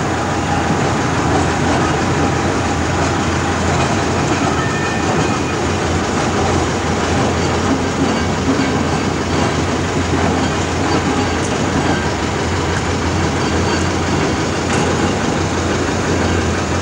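Small diesel shunting locomotive running as it hauls loaded flat wagons past, with the wagons' wheels rumbling and rattling on the rails: a steady, loud rumble.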